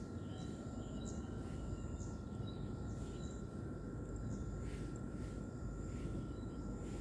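Outdoor ambience: a steady low rumble under a constant thin high insect tone, with scattered short bird chirps.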